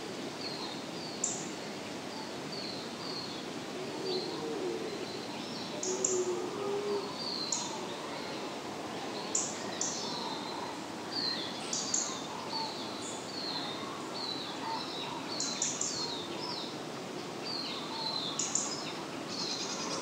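Outdoor nature ambience of many small birds chirping, short high calls repeating throughout, with a few lower warbling calls, over a steady background hiss.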